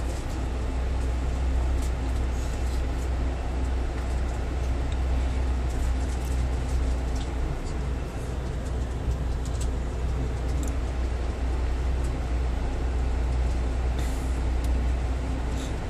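Scania K440 coach's rear-mounted six-cylinder diesel engine heard from inside the passenger cabin, a steady low drone as the double-decker pulls away from the bay and rolls slowly through the terminal.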